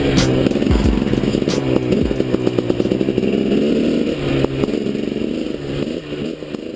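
300cc two-stroke dirt bike engine revving up and down as the bike rides a rough trail, with knocks and clatter from the bike over the ground; it fades near the end.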